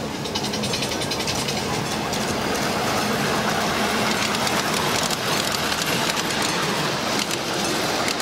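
Ride-on miniature steam train with loaded passenger cars rolling past close by: steady rolling and clatter of the wheels on the track along with the locomotive running. It grows a little louder as the cars come alongside.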